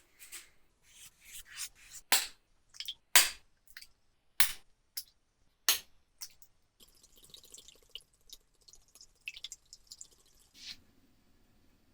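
Kitchen prep sounds: a run of sharp knocks and clinks, as from utensils and dishes being handled, giving way about seven seconds in to a softer rustling with small clicks.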